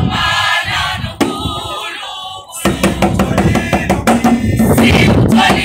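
Choir singing in parts. About halfway in, quick rhythmic percussion joins and the sound gets fuller.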